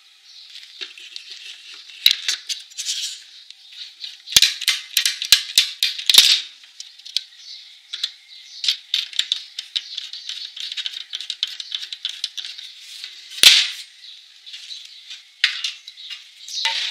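Hands handling a plastic welding-wire spool and a MIG welder's wire-feed mechanism: a run of sharp clicks and rattles, busiest from about four to six seconds in, with one sharp knock a little past halfway.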